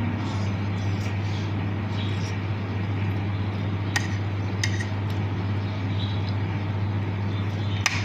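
Steady low mechanical hum, with two light clinks about four and four and a half seconds in.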